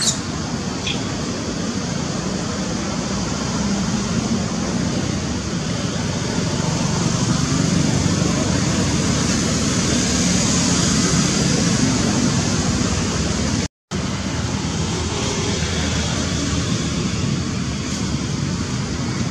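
Steady rushing background noise, broken by a brief total dropout about fourteen seconds in, with a faint short high squeak about a second in.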